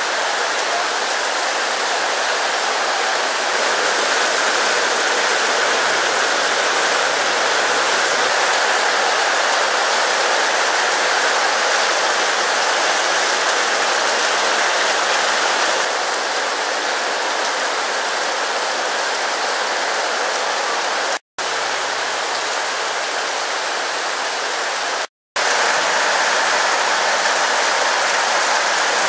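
Heavy rain pouring down steadily in a hissing downpour, broken twice near the end by a split-second gap.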